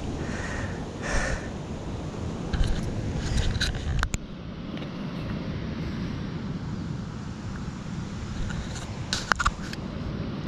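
Wind rumbling on the microphone, with a few short clicks and knocks.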